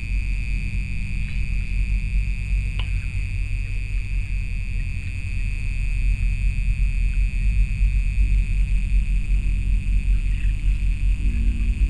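A low, steady rumble with a high steady tone held above it, and a single click about three seconds in.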